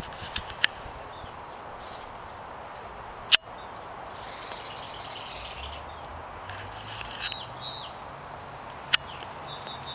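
Outdoor background hiss with several sharp clicks, two of them loud, one about a third of the way in and one near the end. Short high bird chirps and a quick trill come in the second half.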